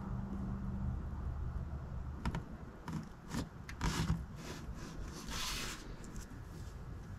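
Motor oil pouring from a plastic jug through a funnel into the engine's fill neck. A low steady flow sound fades after about a second, then come a few clicks and scrapes from the jug and a short hiss past the middle.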